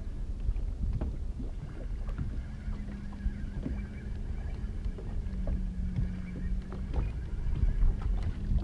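Boat motor running with a steady low hum that drops slightly in pitch about five seconds in. Wind buffets the microphone, and there are a few small knocks.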